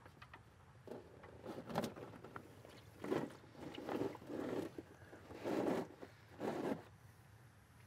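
A drain plug is unscrewed from a Subaru Sambar's manual transmission, then gear oil pours from the drain hole, heard as a few faint, uneven bursts of splashing about half a second each.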